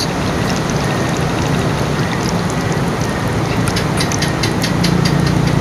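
Hand squishing pork pieces through a wet marinade in a stainless steel bowl, with a few soft wet clicks in the second half, over a steady background hiss and low hum.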